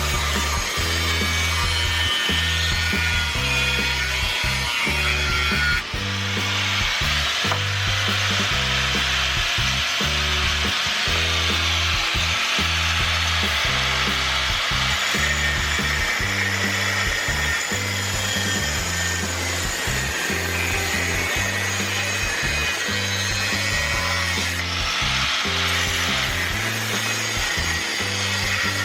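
Background music with a stepping bass line over a power tool working steel exhaust pipe, a steady rasping run that dips briefly about six seconds in.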